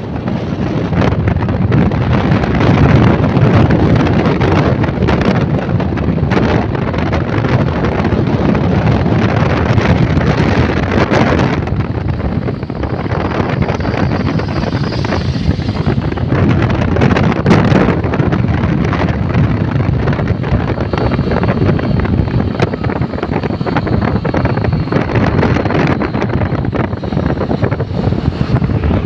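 Wind buffeting the microphone of a camera on a moving motorcycle, a loud rough rush with gusty spikes, over road noise from the ride; it eases a little about twelve seconds in.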